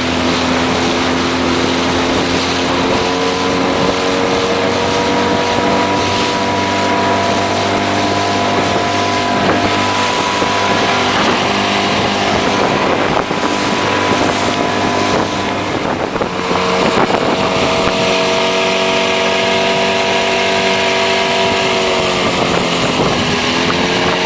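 Motorboat engine running under way at a steady cruising speed, with wind and water rushing. The engine's pitch shifts slightly a few times and dips briefly near the end before picking up again.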